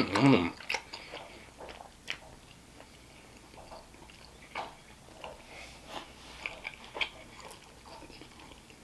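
A person chewing a mouthful of Philly cheesesteak egg roll with the mouth closed: scattered soft, wet chewing clicks and smacks, after a short hum near the start.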